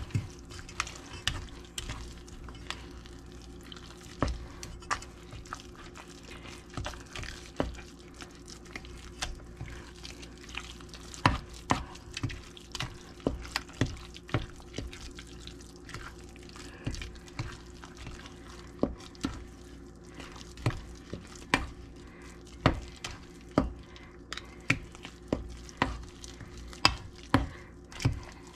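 Thick, wet cake batter with crushed pineapple being folded and stirred with a spatula in a stainless steel mixing bowl: squishing of the batter, with frequent irregular clicks of the spatula against the bowl.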